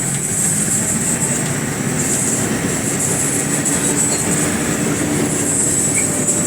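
Steady cabin noise inside a moving matatu minibus: engine and road rumble with rattling.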